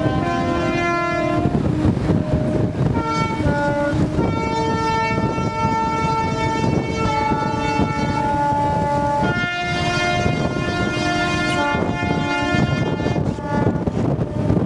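Horns of a fleet of beam trawlers sounding together in protest: several long held blasts at different pitches overlap, some stopping and new ones starting every few seconds, over a steady low rumble.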